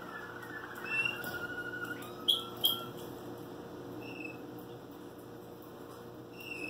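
Waterslager canary singing in short phrases: a low rolling trill for about two seconds, then two sharp loud notes, then a few brief higher chirps with pauses between them.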